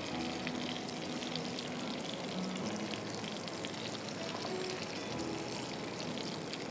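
Butter and fish sizzling steadily in a cast-iron skillet, a continuous fine crackle, with soft background music underneath.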